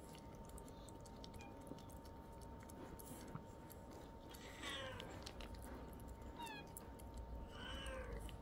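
Cats licking a squeeze-tube lickable treat with faint wet clicks, while a cat gives soft meows: a falling one about halfway through, a short one soon after and another near the end.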